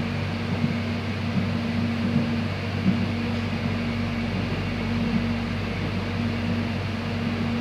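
Inside the carriage of a moving electric airport train: the steady hum and running noise of the train in motion, with a constant low drone.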